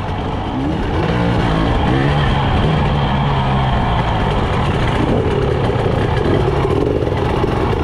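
Husqvarna TE 300i two-stroke dirt bike engine revving up and down on a rough trail climb, picked up close by a front-fender camera. The pitch glides up and down about a second in, then holds fairly steady.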